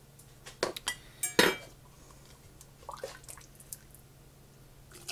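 A metal ladle or spoon clinking against a pot and glass canning jars while beef tips in gravy are ladled into the jars. A few sharp clinks come about a second in, the loudest ringing briefly, followed by softer knocks.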